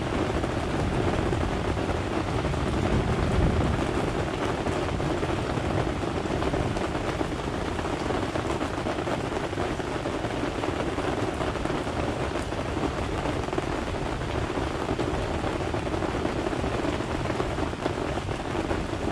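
Steady rain falling during a summer storm, a constant even hiss with no breaks.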